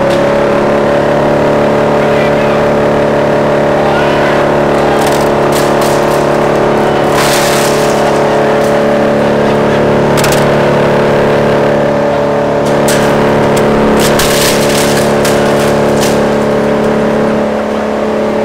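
Wood chipper's engine and cutter running steadily at speed, a constant mechanical hum, with several sharp cracks and rattles through the middle as pieces strike inside the chipper.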